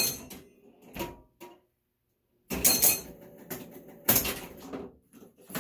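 Super Flite electromechanical pinball machine in play: sharp mechanical clacks and knocks from its solenoids, flippers and relays, coming in irregular clusters with a brief lull in the middle.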